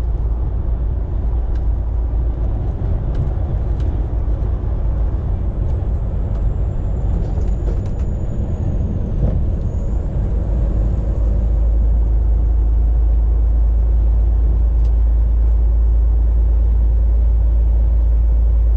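Semi truck on the road: steady low engine and road rumble, becoming steadier and a little louder about eleven seconds in.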